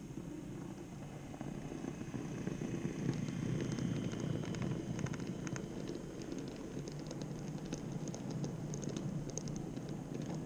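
N-scale Minitrix V 160 model diesel locomotive and its open freight wagons running past close by on the track: a steady rumble that grows louder about three seconds in, with light, irregular clicking from the wheels on the rails.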